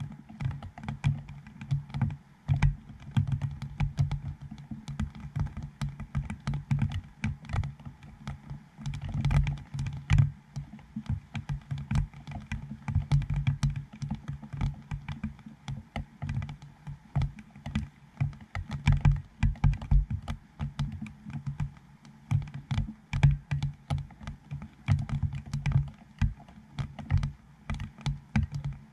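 Raindrops striking the dome port on a GoPro Hero7 that points up into the rain: a dense, irregular patter of small taps and dull thuds.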